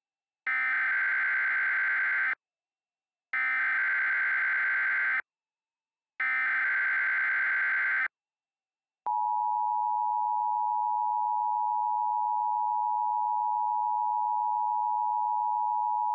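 Emergency Alert System header: three bursts of SAME digital data tones, each about two seconds long with a second's gap between them. About nine seconds in comes a steady, unbroken attention tone. Together they signal the start of an emergency alert, here a tornado warning.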